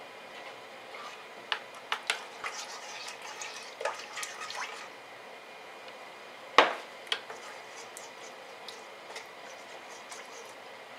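Plastic measuring spoon stirring seasoning paste into a stainless steel pot of broth, with liquid sloshing and several sharp taps of the spoon against the pot, the loudest about six and a half seconds in.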